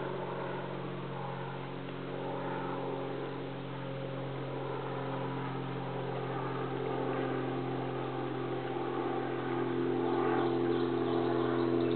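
A steady engine hum of several even tones, growing a little louder about ten seconds in.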